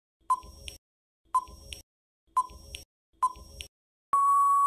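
Quiz countdown timer sound effect: four short beeps about a second apart as the seconds count down, then one long steady beep near the end as time runs out.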